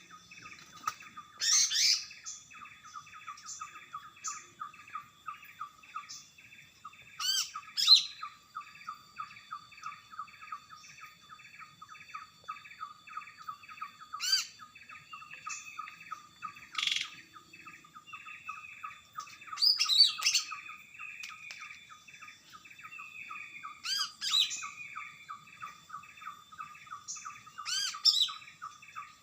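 Cucak ijo (green leafbird) in full song: loud whistled phrases every few seconds over a fast, steady run of short chirps, about four or five a second.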